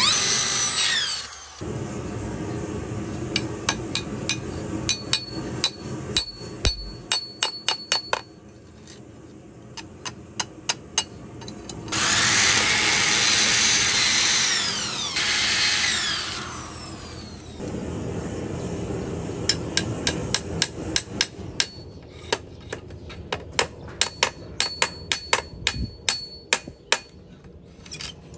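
Handheld electric drill boring into bamboo in two bursts, its pitch falling as it spins down, with runs of sharp, rapid knocks on the bamboo frame in between.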